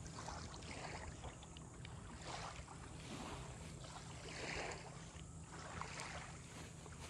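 Faint, gentle lapping of small waves on a river shore, softly swelling every second or so, with light wind.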